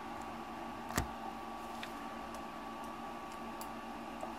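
A sharp click about a second in, then a few faint ticks, over a steady electrical hum: small tools and parts being handled on a workbench.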